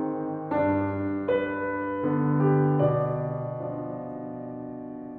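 Solo piano playing a singing melody at a moderate pace over pedalled left-hand chords in three-four time. New notes are struck every second or so for the first three seconds, then a held chord slowly dies away.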